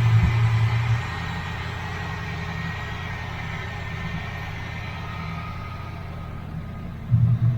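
Car engine idling steadily just after a jump start, with a brief louder surge just under a second in and again near the end.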